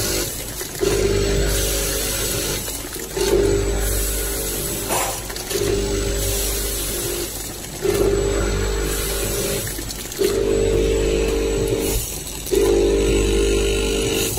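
Vertical sachet packing machine running in a steady cycle: a motor hum with a clear mid tone sounds for about a second and a half, breaks off briefly, and starts again, about every two and a quarter seconds, six times over. A single click about five seconds in.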